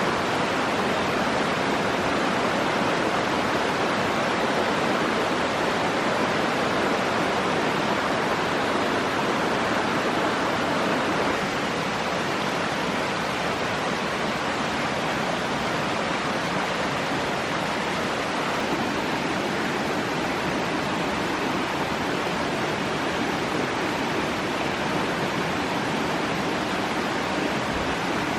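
Forest stream rushing steadily over rocks, a continuous even wash of water noise that drops slightly in level about a third of the way through.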